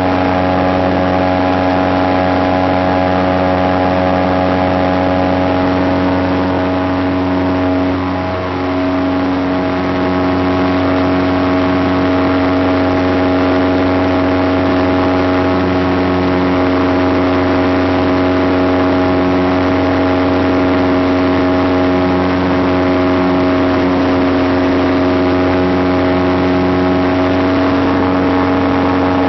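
A light aircraft's engine and propeller run steadily in cruise flight, heard from inside the cockpit. The sound is a constant drone of several even tones, which softens slightly for a moment about eight seconds in.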